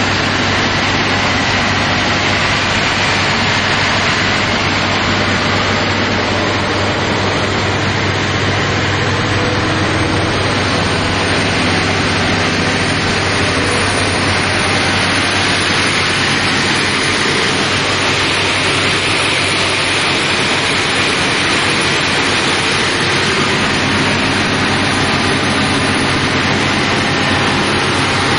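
Volvo engine driving an irrigation pump, running loud and steady at a constant speed.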